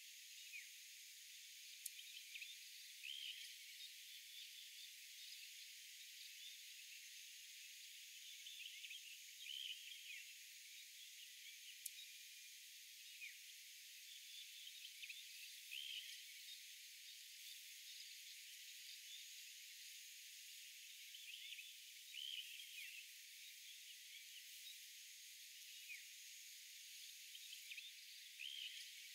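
Faint open-air nature ambience: a steady high hiss and drone with short chirping calls from small animals scattered throughout, and a couple of faint ticks.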